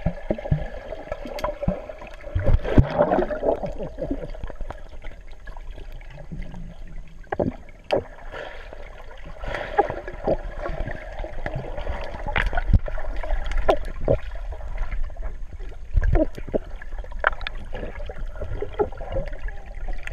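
Pool water heard from underwater: muffled gurgling and bubbling as swimmers move, with scattered sharp knocks and thuds throughout, the loudest about three seconds in and again near sixteen seconds.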